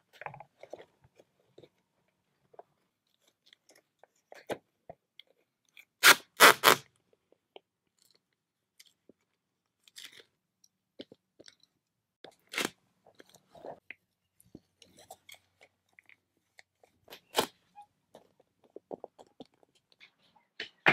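Tuck Tape sheathing tape being pulled off the roll and torn in short, loud rips: two close together about six seconds in, then single rips about six and eleven seconds later. Between them, faint crackling and rustling as the tape is handled and pressed down.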